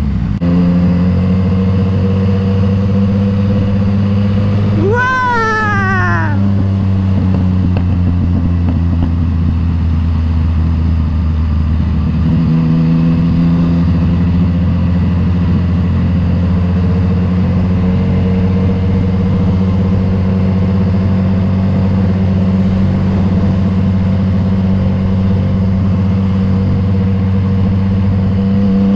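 Yamaha MT-09's three-cylinder engine running through an Akrapovic exhaust while riding at steady speed; its note shifts about twelve seconds in. A short gliding squeal about five seconds in.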